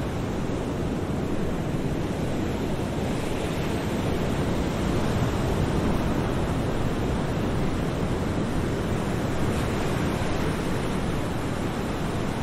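Steady wash of ocean surf, with no pitch or rhythm, swelling slightly about five seconds in.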